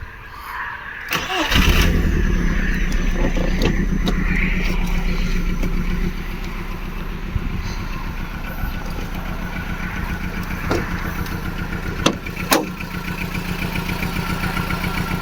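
Seat Ibiza II's 1.4 16v four-cylinder petrol engine starting a little over a second in and then idling, louder at first and settling a little lower after about six seconds. The engine carries a cylinder 3 misfire (fault code P0303). Two sharp clicks about twelve seconds in.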